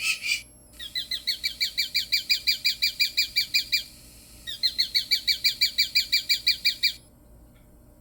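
Bird-X BXP-PRO electronic bird repeller playing a recorded bird call through its speaker: a fast series of short downward-sliding chirps, about eight a second, in two runs with a brief pause between. It stops about seven seconds in, and just before the first run the previous recorded call ends.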